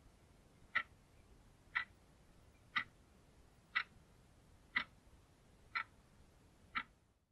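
Analog alarm clock ticking steadily, one sharp tick a second, seven ticks in all.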